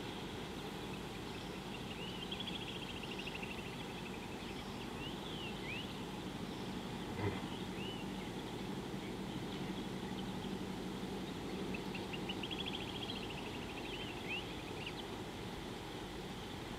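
Birds calling over a steady outdoor hiss: a fast descending trill about two seconds in and again about twelve seconds in, with short rising whistled notes scattered between. A single brief knock about seven seconds in.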